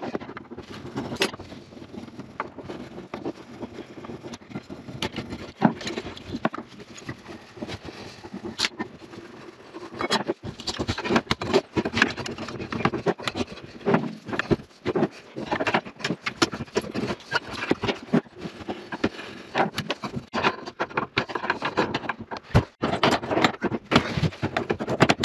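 Busy clatter of knocks, clinks and scrapes from tools and debris being handled and cleared, with sharp irregular impacts throughout.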